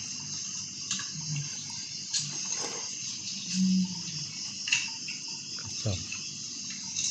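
Wet squelching and rustling as a rubber-gloved hand kneads and mixes raw fish pieces with shredded leaves in a plastic basin, for pekasam. Steady insect chirring runs underneath.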